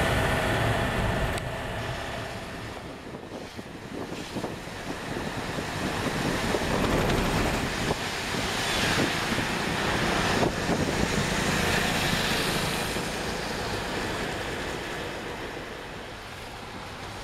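Road noise heard from inside a vehicle driving on a wet road in the rain: a steady hiss of tyres and rain with a low engine rumble, swelling louder in the middle.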